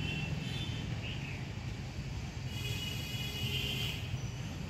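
Outdoor background: a steady low rumble with a few short high-pitched chirps, one falling call about a second in and a cluster of calls a little past halfway.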